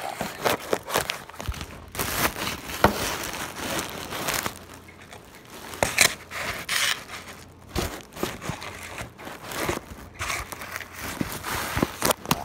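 Handling noise close to the microphone: irregular rustling and crinkling with many sharp clicks and knocks, as hands move around and brush against the recording device.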